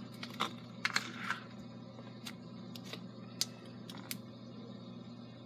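Butter slime being poked and stretched by hand, giving scattered small clicks and pops through the first four seconds, over a steady low hum.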